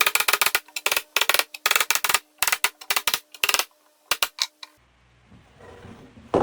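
Rapid, irregular clicking and tapping in quick clusters over a faint steady hum, stopping abruptly near the end; a single sharp knock follows.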